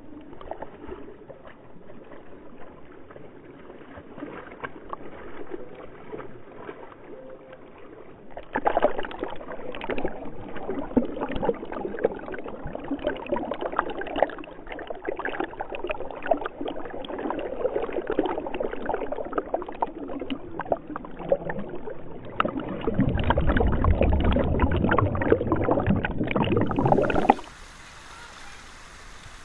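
Shallow river water rushing and bubbling around a camera held in the current, muffled, growing louder about a third of the way in, with heavy low rumbling near the end. It cuts off abruptly to a quieter, steady rush of a rocky stream.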